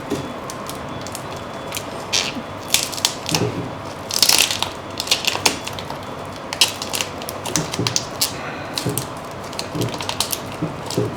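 Plastic packaging crinkling and crackling as it is handled, in an irregular string of clicks and rustles, busiest about a quarter and halfway through.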